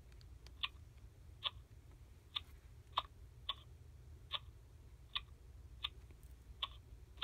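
Baby Alive doll sucking on its pacifier: about ten short sucking clicks, a little under a second apart.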